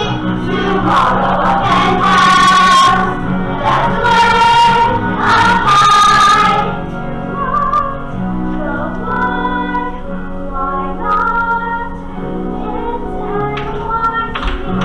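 Stage-musical cast singing together as a choir with musical accompaniment. The singing is loudest in the first half and softer from about seven seconds in.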